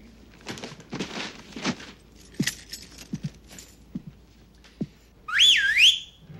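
Soft rustling and light knocks, then about five seconds in a loud human whistle that swoops up and down for about a second: a signal whistle calling hidden pets out.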